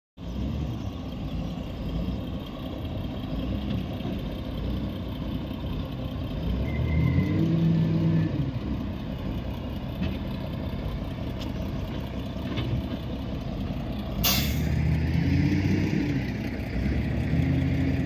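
Heavy log truck's diesel engine pulling a loaded log trailer at low speed, its pitch rising and falling several times as it revs through the gears. A brief sharp noise comes about fourteen seconds in.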